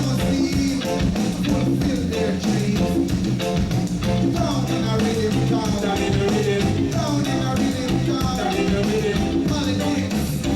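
Live reggae band playing, with bass and percussion under the other instruments, at a steady full level.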